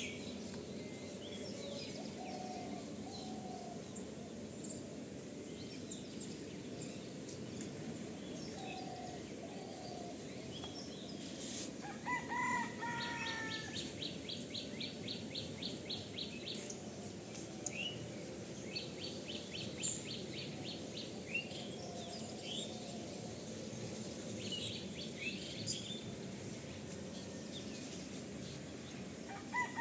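Outdoor birdsong over steady background noise: scattered short chirps and calls, a loud falling call about twelve seconds in and again at the end, and a rapid high trill that comes twice.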